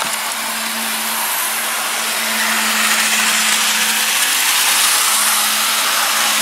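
Model trains running around the track: a steady whir from the small electric motors and wheels on the rails, with a constant low hum underneath.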